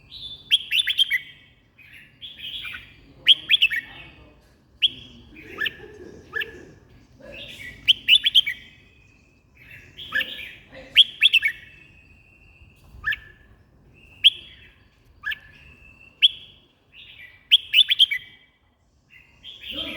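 Red-whiskered bulbul singing: short, bright chirping whistled phrases repeated every second or two.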